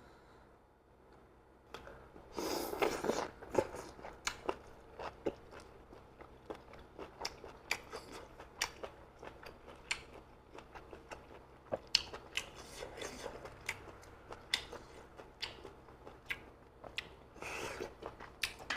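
Close-miked mukbang eating: chewing with many sharp clicks and crunches, and two longer, noisier mouth sounds, one a couple of seconds in and one near the end.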